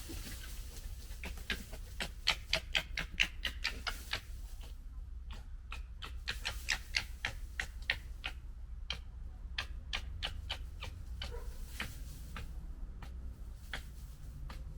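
Red foxes gekkering: rapid, stuttering clicking chatter in several runs with short pauses between, over a steady low hum.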